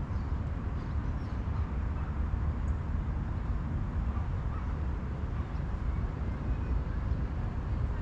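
Lakeside outdoor ambience: a steady low rumble, with a few faint, brief bird calls above it.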